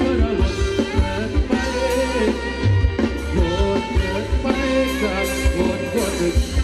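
Thai ramwong band music with a steady beat.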